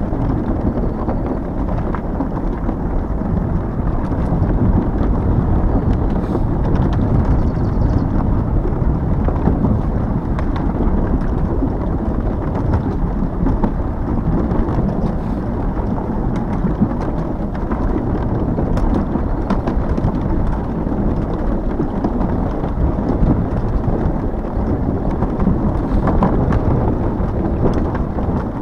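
Wind buffeting the microphone of a rider on a moving Hiboy S2 Pro electric scooter, mixed with tyre and road noise: a steady, loud low rumble with no let-up.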